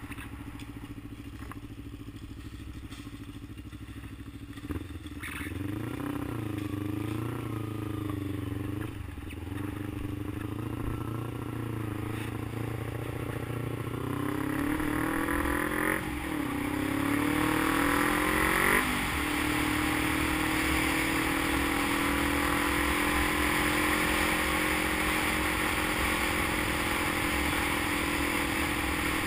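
Motorcycle engine running softly at first, then accelerating through the gears, its pitch climbing and dropping sharply at each upshift. It then settles into a steady cruising note under a growing hiss of wind.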